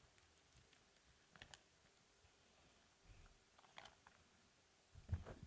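Near silence through a lectern microphone: a few faint, short clicks, then low bumps near the end as the lectern and microphones are handled.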